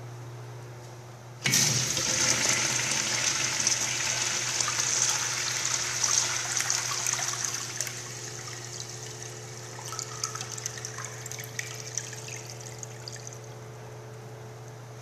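Eljer Correcto urinal flushed by its lever-handle flushometer valve: a sudden rush of water about a second and a half in, running strongly for several seconds, then tapering off into trickles.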